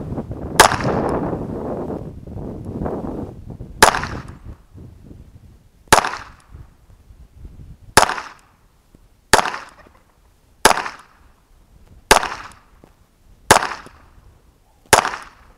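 Smith & Wesson Model 422 .22 LR blowback semi-automatic pistol firing nine single shots, the first few two to three seconds apart, then a steady shot about every second and a half. Wind noise on the microphone fades out over the first few seconds.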